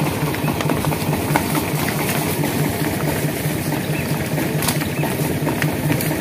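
An engine idling with a steady, even chugging pulse.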